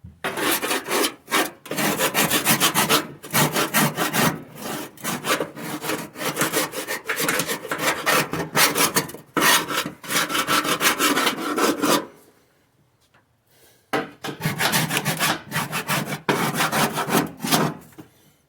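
Rapid, loud back-and-forth rubbing strokes of a hand tool working the car's surface, as in hand scraping or sanding, in two bouts with a pause of about two seconds between them.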